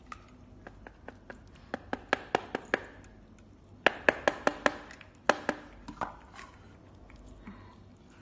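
Cats eating wet food out of stainless steel bowls: quick runs of sharp clicks and taps from chewing and lapping against the metal, in two bursts about two and four seconds in.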